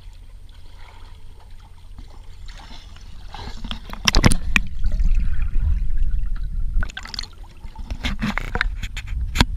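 Pool water sloshing and splashing against a camera held at the waterline. It is quiet at first, then from about four seconds in come loud bursts of splashing and gurgling as the camera dips under. A sharp splash comes near the end, as a swimmer jumps into the pool.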